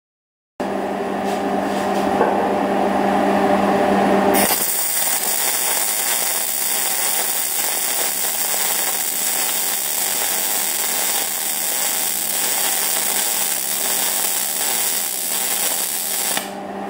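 A steady machine hum, then about four seconds in a MIG welding arc strikes and runs as a steady, harsh sizzle for about twelve seconds, cutting off just before the end.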